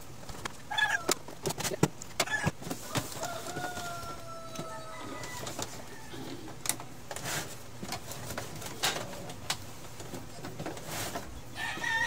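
Scattered clicks and knocks of a plastic inkjet printer being handled and closed up. A rooster crows in the background, one long call drawing out about three seconds in.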